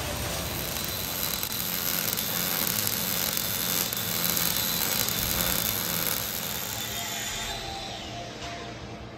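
Steady loud hiss and hum of workshop noise with a few faint clicks, easing off after about seven and a half seconds.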